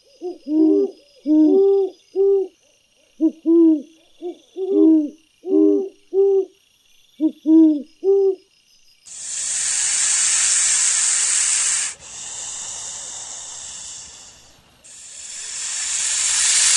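An animal's short hooting calls, about two a second in small groups. From about nine seconds in, a loud hiss follows in three long stretches, each starting and stopping abruptly.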